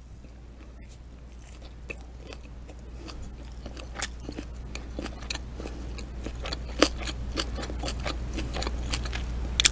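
Close-miked chewing of a soft chicken wrap: a bite, then wet mouth clicks and smacks scattered throughout, over a low steady hum.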